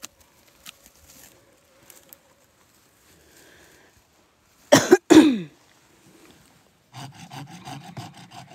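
A man coughs twice in quick succession, the loudest sound here, the second cough sliding down in pitch. About seven seconds in, a fast, even scraping starts, many strokes a second, as his hands work at a dug-up woody stump.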